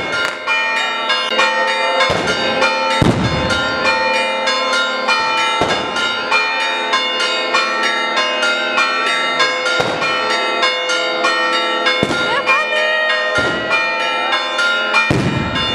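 Church bells pealing rapidly and continuously, a dense, fast clangour of overlapping strokes with a few heavier strokes standing out. This is the Orthodox Easter midnight ringing for the Resurrection.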